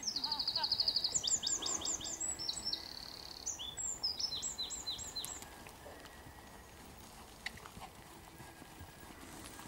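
A small songbird singing: a fast high trill, then a run of quick falling whistled notes and more trills, stopping about halfway through. After that, only faint occasional thuds from the horse's hooves on the arena surface.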